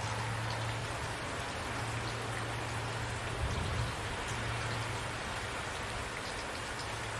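Steady rain falling, an even hiss with scattered drips, over a low steady rumble.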